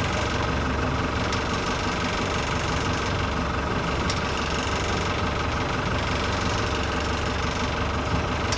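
Boat's engine running steadily at trolling speed, a constant low hum, with a few faint clicks.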